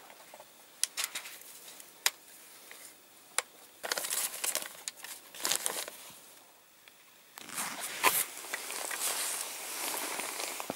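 A Ruger 10/22 Takedown rifle and its padded nylon case being handled: a few sharp clicks and knocks of the rifle parts, then rustling and scraping of the case fabric.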